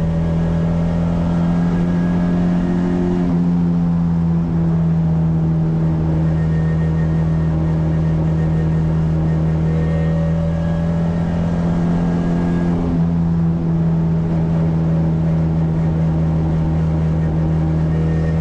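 Ford Escort 1600 engine on Dellorto carburettors running at steady motorway cruise, heard from inside the stripped cabin. The engine note holds nearly constant, with slight shifts in pitch.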